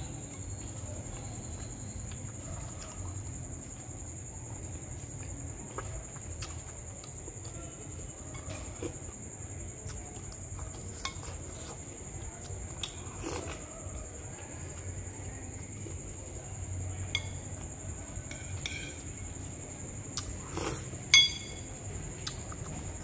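Metal spoon clinking against a ceramic bowl of food, with scattered soft eating clicks; one sharp, ringing clink stands out near the end. A steady high-pitched whine runs underneath.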